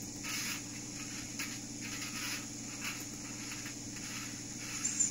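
Steam-locomotive chuffs from an ESU LokSound v4.0 sound decoder fitted to a Fleischmann N-scale BR 23, played through its small speaker. It gives an even series of short hissing puffs, about one and a half a second, over a faint steady hum.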